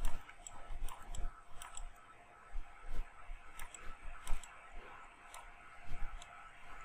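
Irregular light clicks of a computer's input devices, a dozen or so spread unevenly, as a digital sculpting program is worked.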